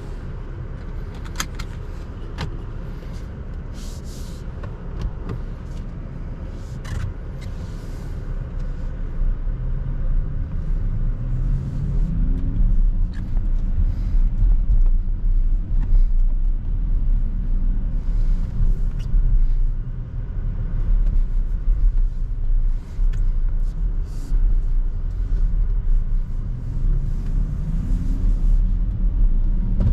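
Porsche Macan 4 Electric driving, heard from inside the cabin: steady road and tyre rumble that grows louder about ten seconds in as the car speeds up. A low hum rises in pitch twice with the acceleration.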